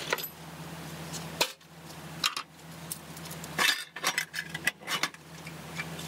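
Clinks and knocks of a steel frame piece and hand tools being picked up and set down on a metal workbench, a handful of sharp separate strikes, over a steady low hum.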